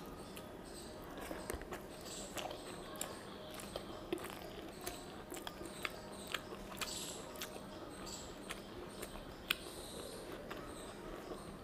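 Close-miked eating sounds of a person chewing rice and curry, with irregular wet mouth clicks and smacks, and fingers squishing rice on a banana leaf.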